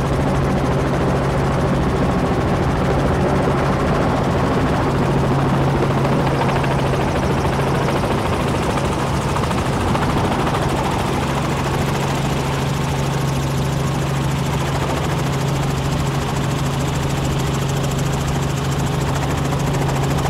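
Helicopter in flight heard from inside its cabin: a steady drone of rotor and engine with a strong low hum.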